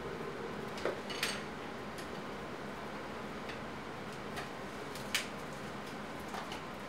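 Scattered light clicks and clinks of small hard objects being handled, about seven of them at irregular intervals over steady background noise. The one a little over a second in rings briefly.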